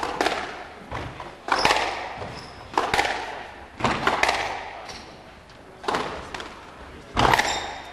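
Squash rally: sharp cracks of the racket striking the ball and the ball hitting the walls, about one every second or so, each ringing on briefly in the court. The loudest hit comes near the end.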